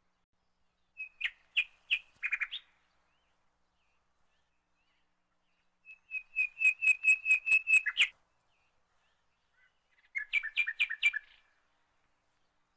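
A bird chirping in three short bursts of quick repeated notes, the middle burst a fast even run of about ten chirps.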